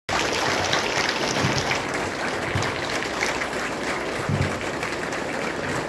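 Large crowd of students applauding: many hands clapping at once in a steady, dense patter with no letting up.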